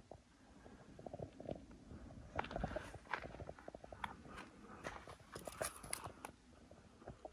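Faint, irregular crunching and clicking from a hiker moving close to the microphone, busiest through the middle few seconds.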